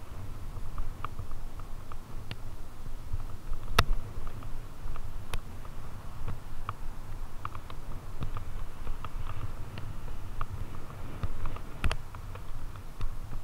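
Fatbike rolling over a bumpy grass trail: a steady low rumble with irregular rattles and clicks from the bike, and two sharper knocks, one about four seconds in and one near the end.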